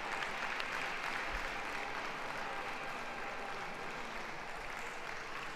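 Audience applauding steadily as a dog is introduced into the show ring, with scattered individual claps audible within it.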